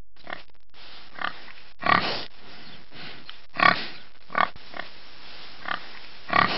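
Domestic pig grunting: a series of about eight short grunts, a few of them louder, over a steady background hiss.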